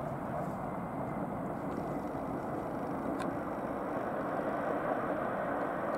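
An Airbus A330-300 airliner's jet engines making a steady, even rumble as it rolls along the runway after landing.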